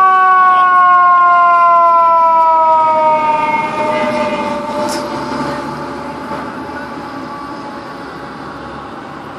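Fire engine siren sounding one long wail that falls slowly in pitch over the first few seconds, then the fire engine's engine and road noise fading steadily as it drives away.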